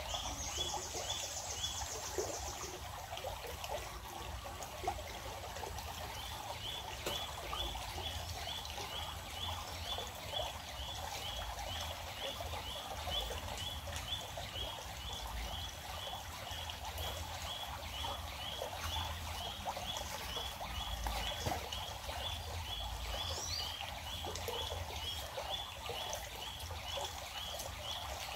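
Stream water trickling and flowing, with a short high chirp repeated about twice a second through most of it and a brief high trill in the first couple of seconds.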